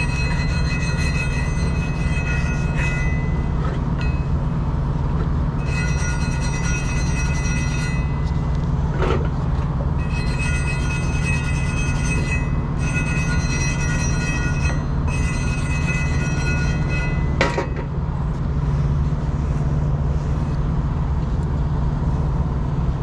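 A handheld rotary power tool whining in five short runs of about two seconds each, cleaning the axle hub flange surface smooth for the new axle seal. A steady low hum runs underneath.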